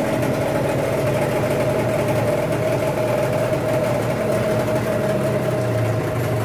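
Brand-new Hangkai 18 HP two-stroke outboard motor running steadily on its first run.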